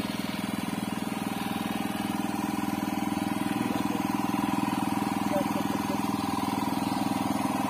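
Engine aboard a bangka fishing boat running steadily at idle: a low, even drone with a fast regular pulse.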